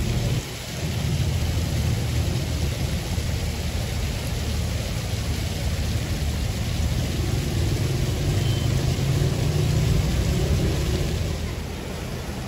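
Busy city street traffic: engines of buses and cars running as a steady low rumble that grows louder for a few seconds and eases off near the end, over the even hiss of a splashing fountain.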